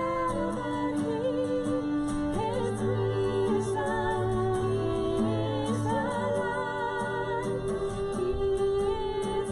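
A woman singing a slow worship song with long held notes, accompanied by strummed acoustic guitar and violin.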